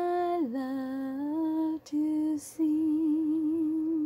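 A woman singing unaccompanied, the closing phrase of a hymn. She holds a note that dips about half a second in, takes short breaths between phrases, and finishes on a long note with a slow vibrato.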